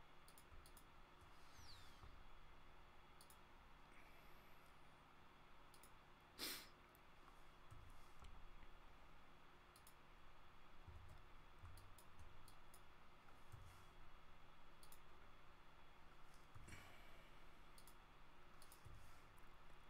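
Faint, scattered clicks of a computer mouse and keyboard over near-silent room tone, with one louder click about six and a half seconds in.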